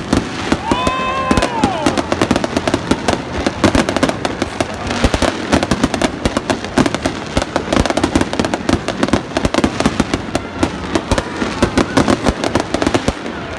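Fireworks display: a dense, rapid stream of crackling and popping firework bursts, with many sharp cracks layered over one another.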